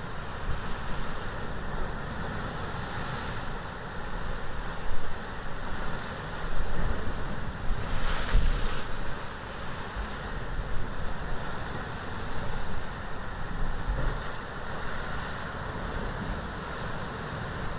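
Ocean surf washing in as a steady noisy hiss, with a swell about eight seconds in and low wind rumble on the microphone.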